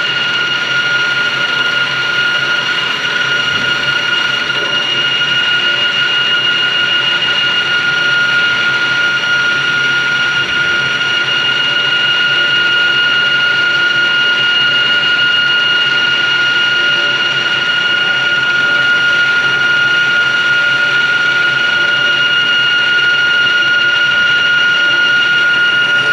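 CNC lathe running a boring operation on a spur gear: a steady high-pitched whine with a second, higher tone over steady machine noise.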